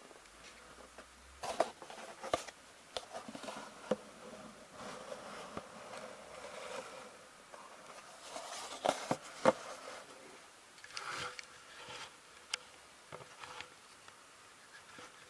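Irregular light clicks, taps and rustling, as of small objects being handled, with the sharpest clicks about a second and a half in and around nine seconds in.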